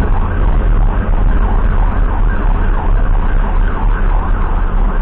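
Emergency vehicle siren sweeping quickly up and down in pitch, over the steady low rumble of a moving vehicle.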